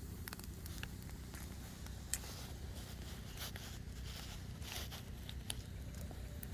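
Firewood burning with irregular crackles and sharp pops over a steady low rumble, the loudest pop about two seconds in.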